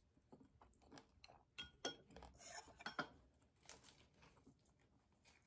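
Quiet clinks and taps of wooden chopsticks against dishes and a plastic food container while eating, one of them ringing briefly.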